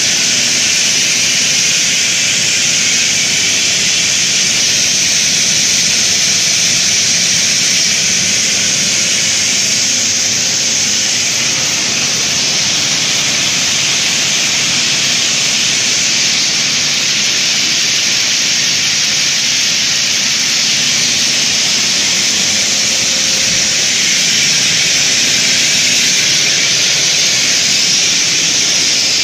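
Steel wire drawing machine running at speed, a steady, loud hissing whir with most of its sound in the high range, from the wire racing over the capstan and guide pulleys onto the take-up.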